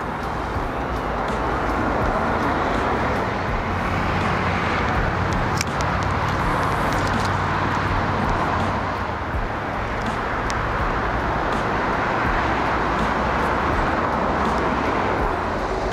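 Steady rushing roar of city traffic, with a few faint ticks.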